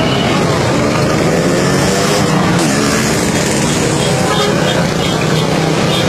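Vehicle engines running amid the voices of a large crowd, loud and steady.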